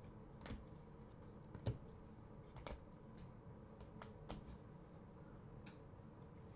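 Faint, irregular clicks and taps of rigid plastic toploaders knocking together and set down on a table as trading cards are sorted, the sharpest just under two seconds in.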